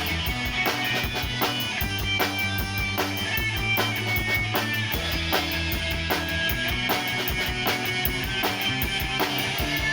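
Live rock band playing an instrumental break with no vocals: guitar lines over a steady drum-kit beat and sustained low notes.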